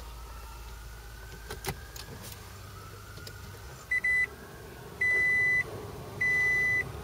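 Toyota Prius dashboard chime beeping as the car is powered on with the ODO button held down: two short beeps about four seconds in, then long, evenly spaced beeps a little over a second apart. Before them, a faint rising whine and a single click.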